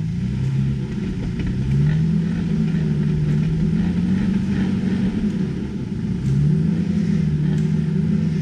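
Off-road vehicle's engine revving hard under load as it tries to drive out of a spot where it is stuck. The pitch climbs at the start and holds high, sags about five seconds in, then climbs again.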